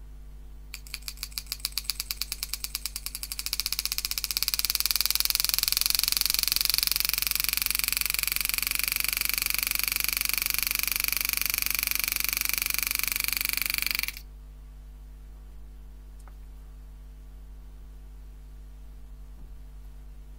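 A homemade motor-driven hand engraving machine hammering a 120° carbide graver into 304 stainless steel. It starts with separate rapid strikes about a second in, which speed up as the strike rate is raised until they blur into a fast, steady buzz. It cuts off abruptly about 14 seconds in.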